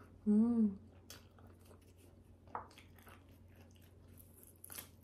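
A short hummed "mmm" from the eater, then soft chewing and mouth clicks, with a bite into a cheese-filled sausage near the end.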